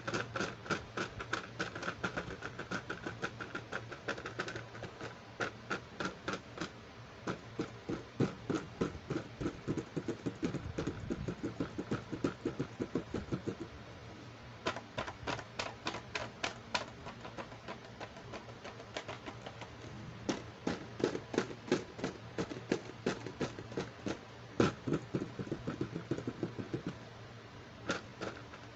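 Fingertips and nails tapping on the plastic case of a toy doctor kit, in rapid runs of light clicking taps with short pauses between them.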